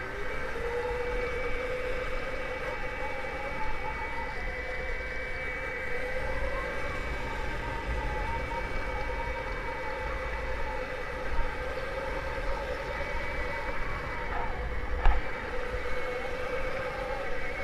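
Electric motor whine from a custom 3000 W 72 V electric Puch Maxi moped and a 1000 W 48 V electric quad riding side by side: a steady high whine that glides up in pitch at the start and then holds, over a low rumble. A single knock sounds about fifteen seconds in.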